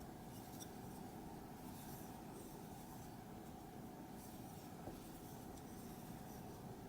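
Faint rustling of a crochet hook drawing cotton-blend yarn through stitches, with a small tick about five seconds in.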